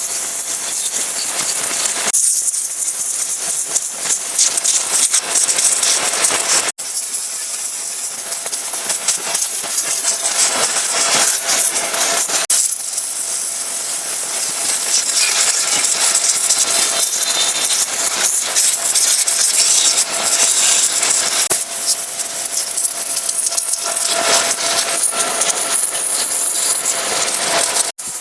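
Pressure washer jet spraying water against a truck, a steady hissing spray that cuts out for an instant about a quarter of the way through.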